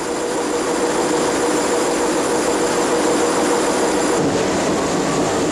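Continuous-form web printing press running at speed, a steady mechanical din with a constant hum-like tone, as its delivery folds the printed paper web into zigzag stacks. The sound shifts slightly a little after four seconds.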